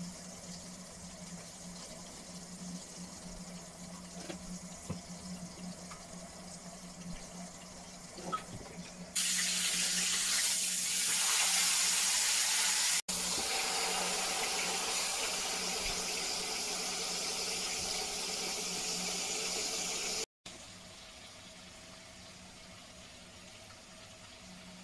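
Chicken pieces sizzling in hot oil in a frying pan: a loud, even hiss that starts abruptly about nine seconds in and cuts off abruptly about eleven seconds later. Before it, a quieter low steady hum with a few light clinks of a spoon stirring in a ceramic bowl.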